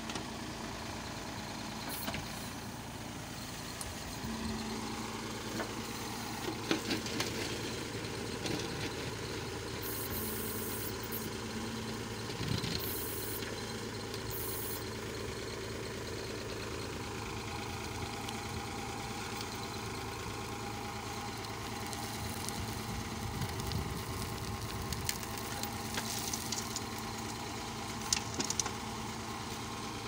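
Sonalika DI 42 tractor's diesel engine running steadily as it drives the hydraulics of a backhoe attachment digging and loading soil. Occasional short knocks come from the backhoe working.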